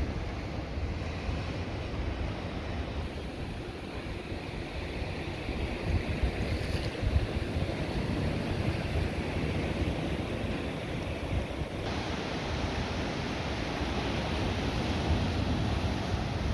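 Steady rush of wind on the microphone mixed with water, like waves, heaviest in the low rumble; the hiss suddenly turns brighter about twelve seconds in.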